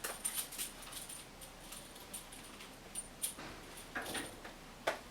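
Light handling sounds of a plastic treatment handpiece and its cable being moved and fitted to the machine: soft rustles and scattered small clicks, with a sharper click near the end.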